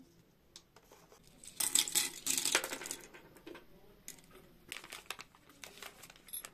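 Pistachios in their shells clattering into a ceramic serving dish in a dense rattle of clicks a couple of seconds in, followed by scattered light clicks of snacks set down and the crinkle of plastic snack wrappers.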